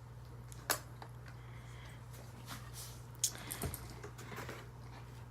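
A few light clicks and taps of an acrylic desk clock with a wooden back being handled, with the sharpest click about three seconds in and a small cluster just after, over a steady low hum.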